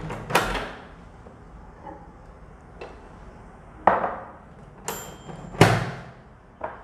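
Five sharp knocks and clunks from a microwave door and a glass bowl handled on a granite worktop, one with a brief glassy ring. The loudest knock comes about two thirds of the way through.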